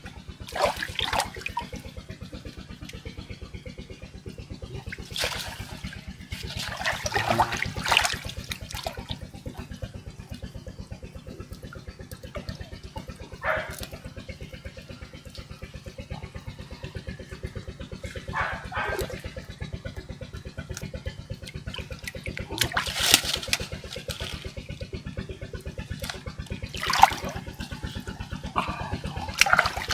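Pond water splashing and sloshing in short bursts, several times, as a gill net is worked in the water. A steady, evenly pulsing low hum runs underneath.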